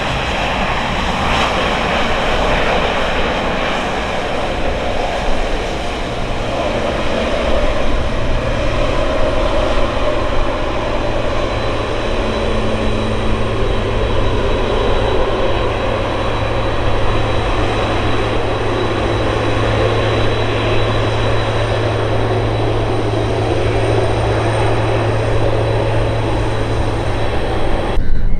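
Boeing 767 freighter's jet engines running steadily, a high thin whine over a loud wash of engine noise with a low hum beneath, cutting off abruptly near the end.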